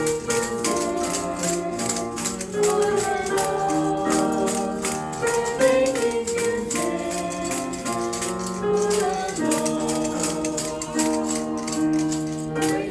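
A children's praise song sung to a musical accompaniment, with hand percussion such as shakers and tambourines rattling along to the beat.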